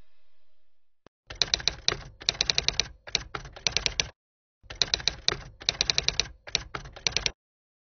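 Rapid typing clicks of keys struck in quick succession, in two runs of about three seconds each with a half-second pause between them.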